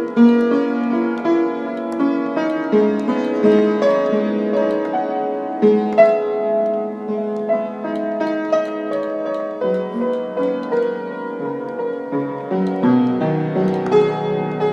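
Instrumental music: a keyboard plays a Xinjiang folk song melody in held notes over chordal accompaniment, with a lower bass line entering near the end.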